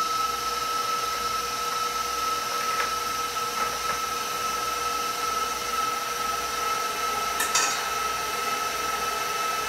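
KitchenAid stand mixer motor running steadily with a high, level whine, driving the pasta press's auger. A couple of light knocks about three and seven and a half seconds in.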